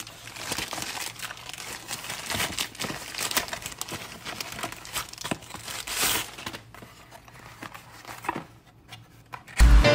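Plastic parcel wrapping crinkling and tearing as it is handled and opened, an irregular run of crackles. Music with a steady beat starts just before the end.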